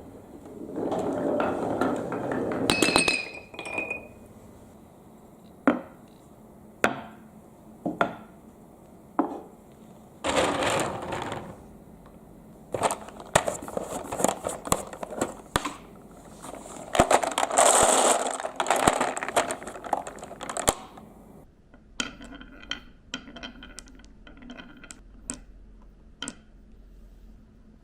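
Balls clicking and clinking down a plastic marble run track, with a few spells of rushing water. Near the end the impacts turn to a quick, light rattle of balls rolling along the track.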